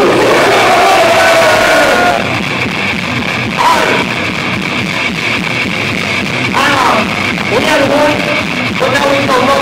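Loud rock music with guitar, played over a stage PA and heard from among the crowd, with voices yelling and singing over it.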